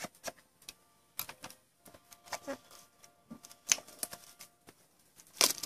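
A small sealed trading-card pack being slit with a folding multitool blade and pulled open by hand: irregular clicks, scrapes and crinkles, with sharper snaps about 3.7 s in and near the end.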